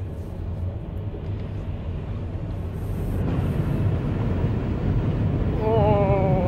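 Steady low rumble of a car driving, heard from inside the cabin, growing slowly louder. Near the end a person lets out a long, drawn-out vocal sound.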